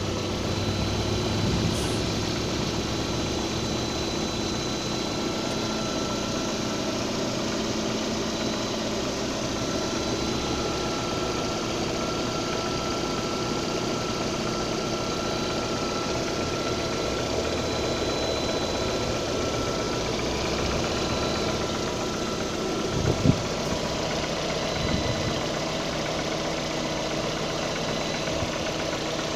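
Lada Priora's four-cylinder petrol engine idling steadily with a knock in it, the knock the owner is recording. A short sharp thump stands out about 23 seconds in.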